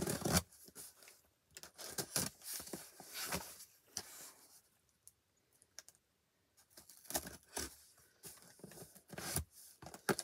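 Scissors blade slitting the packing tape along the seams of a cardboard box: scratchy tearing and scraping in irregular strokes, with a pause of about two seconds in the middle.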